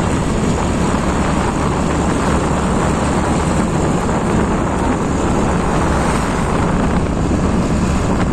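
Steady noise of a moving vehicle at road speed: engine, tyres and rushing wind, even and unbroken.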